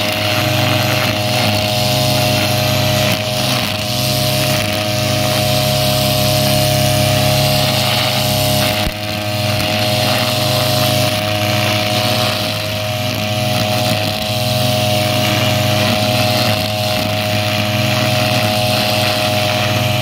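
Petrol brush cutter's engine running steadily with the throttle held, its nylon line head cutting grass; the level dips briefly about nine seconds in.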